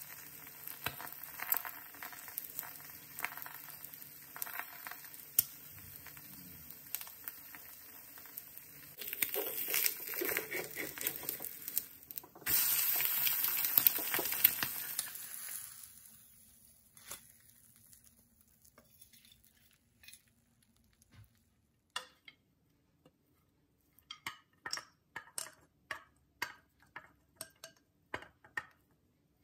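Egg frying in a nonstick pan, a steady sizzle with small crackles that grows louder about nine seconds in. At about twelve seconds it jumps to a much louder sizzle, with the omelette turned onto its other side, then fades away over a few seconds. In the last third come scattered light taps and clicks as poha is spooned from a pan into a ceramic bowl.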